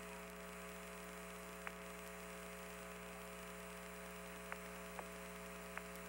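Steady hum and hiss of the Apollo 15 air-to-ground radio link with the channel open and nobody talking, broken by four faint, short clicks.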